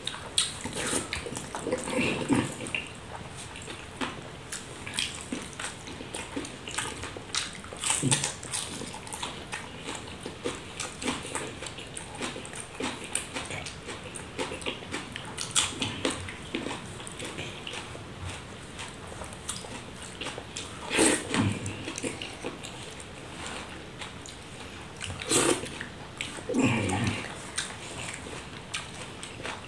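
Close-up eating sounds of a man eating rice by hand off a banana leaf: chewing, wet lip smacks and the squish of curd rice being squeezed in the fingers, with irregular clicks and a few louder smacks.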